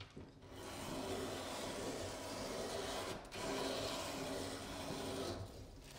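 A leather edge being ground down against the spinning wheel of a 3-in-1 leather machine, knocking down the edge so the piece is easy to skive. It makes a steady rubbing noise that starts about half a second in, breaks off briefly about three seconds in, and stops shortly before the end.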